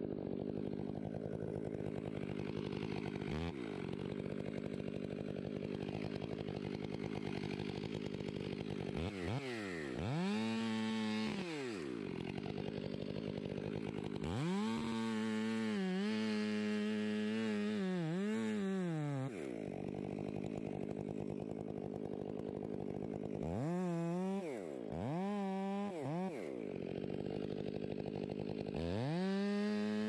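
Two-stroke chainsaw idling up in a fir tree, revved up to full speed several times, once held for about four seconds in the middle, each time dropping back to idle: cutting off limbs from the trunk.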